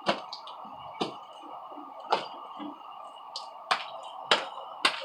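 Sharp knocks and clicks, about six of them at irregular intervals, over a steady background hum: objects being handled and set down.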